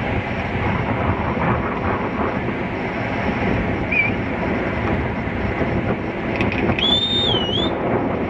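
Wind blowing across the camcorder microphone over crashing waves on a beach: a steady, loud rushing noise. A short, high whistle that wavers in pitch cuts through near the end.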